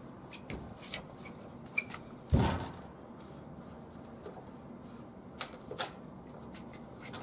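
Slow rappel on a carabiner with an Italian hitch: scattered sharp clicks and knocks of gear, with one heavier thump about two and a half seconds in and two sharper clicks about five and a half seconds in.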